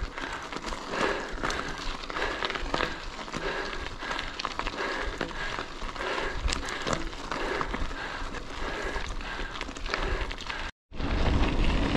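Mountain bike rolling over a loose, stony track: a steady crunching crackle of tyres on gravel with many small clicks. The sound drops out for a moment near the end, then a low wind rumble comes in.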